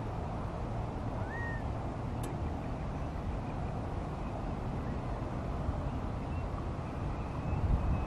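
Steady low rumble of background traffic, with one short bird call rising then falling about a second in and faint high chirps in the second half. A couple of low thumps just before the end.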